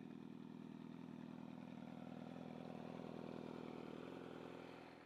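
Yamaha YZF-R6 inline-four engine idling steadily, fading slightly near the end.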